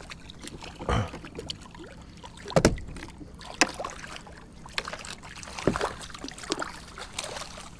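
A small hooked trout being landed and handled at the side of a small boat: a few scattered knocks and splashes over a low background hiss, the loudest about two and a half seconds in.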